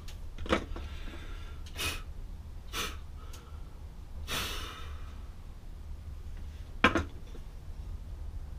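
Short puffs of breath blown across a plaster of Paris mold to clear shaved plaster dust, three of them, the longest about four and a half seconds in. A light knock comes about half a second in, and a sharp knock near the end is the loudest sound.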